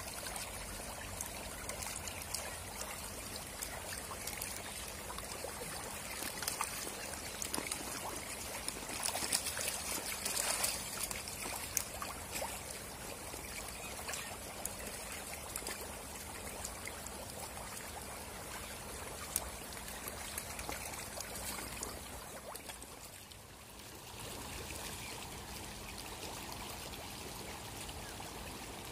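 Crowded hybrid magur catfish churning and splashing at a pond's surface: a steady wash of moving water speckled with many small splashes, easing briefly late on.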